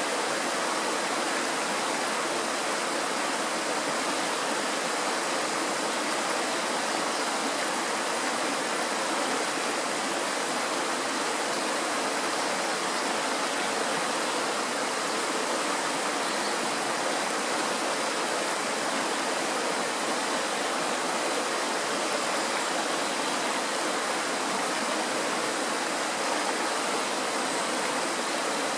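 Fast mountain stream rushing over rocks and a small cascade of white water, a steady, even rush of running water.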